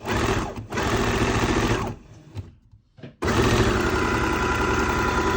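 Brother electric sewing machine running, stopping briefly, running again, then pausing for about a second before starting up and running steadily. Freshly oiled in its gears and weight, it is running freely again.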